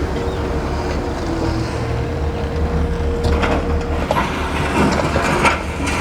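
Heavy diesel machinery running steadily during a rock and gravel delivery, with a held whine and several sharp metallic clanks and knocks in the second half.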